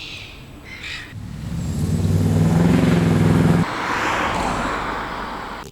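Motor vehicle sound: a loud, low engine hum for a couple of seconds that cuts off abruptly, followed by a rush of noise that swells and then fades.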